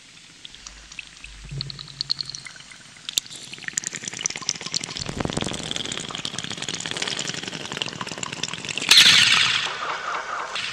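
Noisy non-musical passage from an industrial electronic album: scattered clicks and crackles, then a dense hissing rush from about four seconds in, with a loud burst about nine seconds in.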